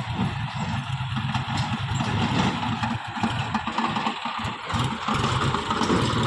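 John Deere tractor's diesel engine running steadily, getting louder about five seconds in.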